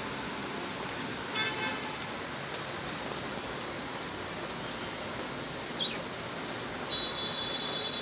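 Pet budgerigars giving a few short chirps and, near the end, a brief held high whistle, over a steady background hiss.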